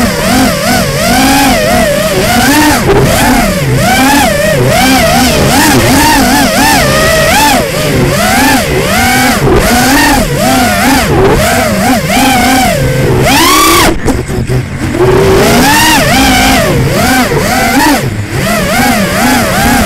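FPV quadcopter's brushless motors and propellers whining, heard from the onboard camera, the pitch rising and falling quickly with each throttle change. About two-thirds of the way through the whine drops away briefly as the throttle is cut, then comes back.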